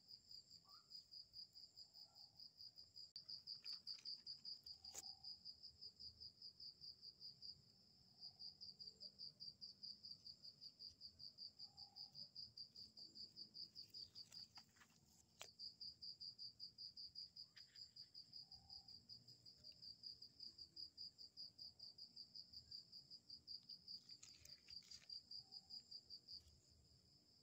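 Faint cricket trilling at night: a fast, high-pitched pulsed trill that keeps going, breaking off briefly three times. A faint lower call repeats about every two seconds, and there are a few soft clicks.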